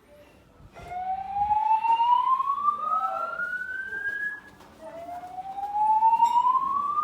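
EST-3 voice evacuation speakers sounding the slow whoop evacuation tone: two rising sweeps, each about four seconds long, starting about a second in and again near the middle.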